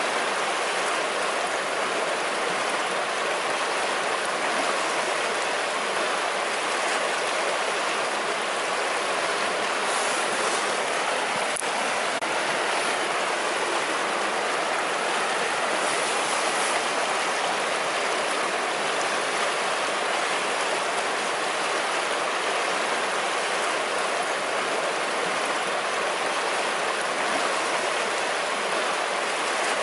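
A river running: a steady rush of flowing water over rocks.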